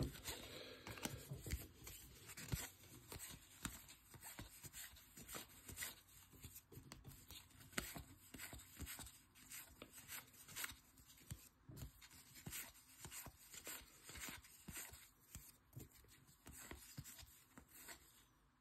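Faint, irregular rustling and flicking of baseball trading cards being slid one at a time from the front to the back of a handheld stack.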